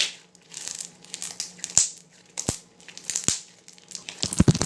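Slime being squeezed and worked in the hands, making a string of sharp pops and crackles, with a louder cluster of pops near the end.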